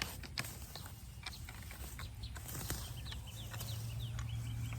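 Scattered crackling clicks and rustling of weeds being pulled by hand from a garden bed. About halfway through comes a quick series of short, high bird chirps, over a low steady rumble.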